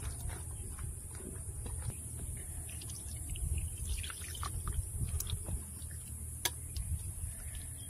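Wet squelching and splashing of a hand kneading whole koi fish (climbing perch) in ground spice paste in a steel tin, with water poured in from a steel mug about midway. Small irregular clicks run through it, and one sharper click comes near the end.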